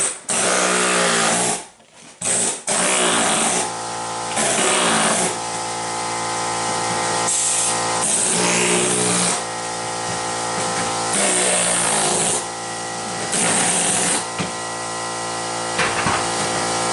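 Pneumatic air impact hammer with a chisel bit, chipping porcelain floor tiles and their cement bed off the subfloor. It fires in repeated bursts of one to two seconds, over a steady drone.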